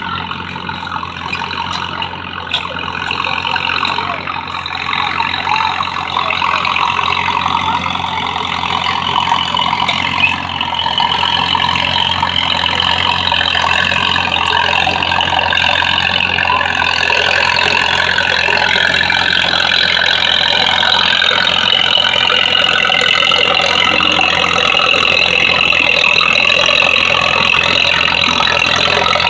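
Minneapolis-Moline U tractor's four-cylinder engine running steadily under load as it pulls a weight-transfer sled. It grows louder over the first dozen seconds, then holds steady.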